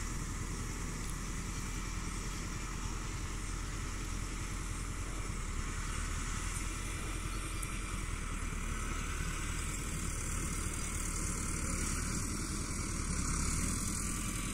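Massey Ferguson 385 tractor's diesel engine running steadily at work, a continuous even drone.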